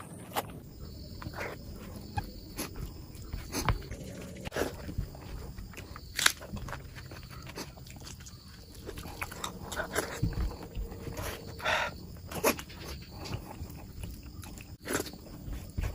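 Close-up eating sounds of someone chewing mutton fat curry: irregular wet smacks and clicks of the mouth, a few sharper ones standing out.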